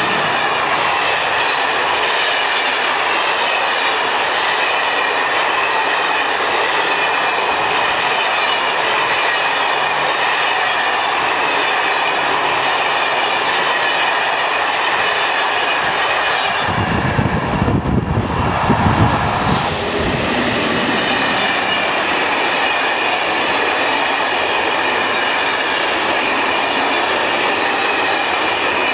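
Téoz Corail passenger coaches rolling past close by at speed: a steady loud rumble and hiss of wheels on rail, with a clickety-clack over the rail joints. About two-thirds of the way through there is a brief burst of low rumble, then the steady rolling noise goes on.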